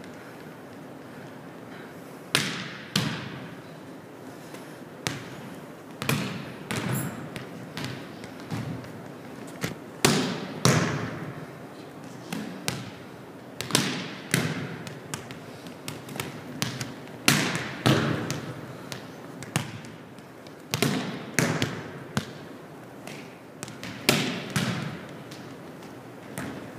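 Volleyballs struck by hand and bouncing on a hardwood gym floor: sharp slaps and thuds every second or two, echoing in a large gym.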